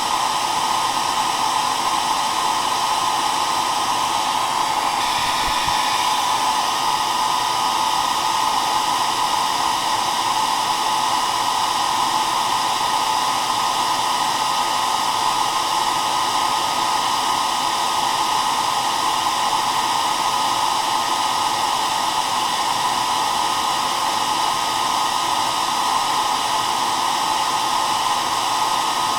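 Hair dryer running steadily, a continuous airy blowing hiss with a strong band around the middle of the range.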